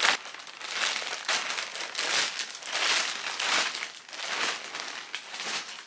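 Packaging crinkling and rustling in irregular handling bursts as a clothing parcel is unwrapped.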